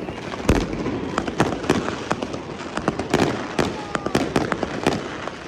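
Fireworks going off: a rapid, irregular run of sharp bangs and cracks over continuous crackling, with one deeper boom about half a second in.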